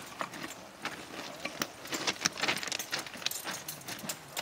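Scattered light metallic clinks and taps of hand tools against the steel rail and weld, coming at irregular intervals.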